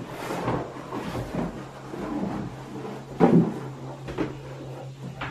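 A large side of stiff natural strap tooling leather being unrolled, lifted and spread on a wooden table: repeated rustling, sliding and flopping, with the loudest thump about three seconds in. A steady low hum runs underneath.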